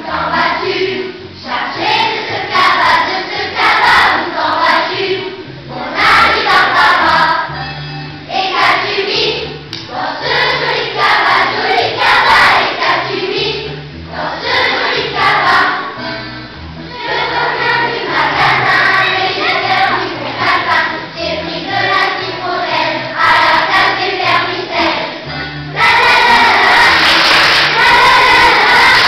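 Children's choir singing with musical accompaniment, in phrases separated by short pauses. The singing is louder for the last few seconds.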